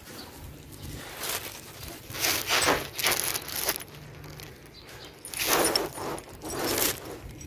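Handling noise from a copper ground wire and a copper ground-rod clamp: two spells of rustling and scraping, the second with light metallic clinks.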